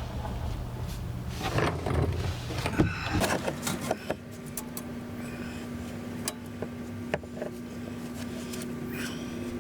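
Metal scraping and clicking as a carriage bolt and its fish wire are handled and worked into a vehicle frame. It is busiest in the first three seconds, then thins to scattered clicks over a steady low hum.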